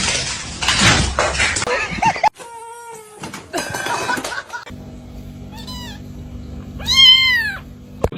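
A cat meowing several times, the loudest, longest meow near the end, over a steady low hum. A noisy, unpitched sound fills the first two seconds before a cut.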